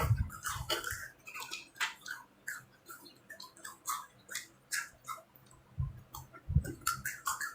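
Close-up chewing of a spicy packaged macaroni snack: irregular crunchy clicks and crackles in the mouth, with a couple of low thuds near the start and about six seconds in.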